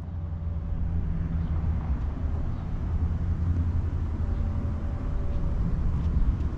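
Steady low engine rumble with a deep hum, typical of a diesel train locomotive running out of sight.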